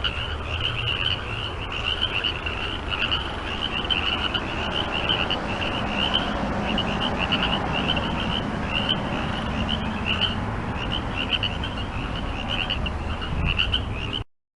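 A chorus of frogs croaking: a high, short call repeats about twice a second over a dense, steady din of many other frogs. The sound cuts off abruptly near the end.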